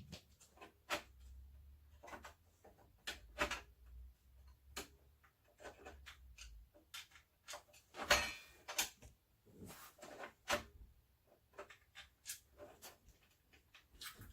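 Irregular clicks, knocks and short scrapes of hands handling computer hardware, with a longer, louder scrape about eight seconds in.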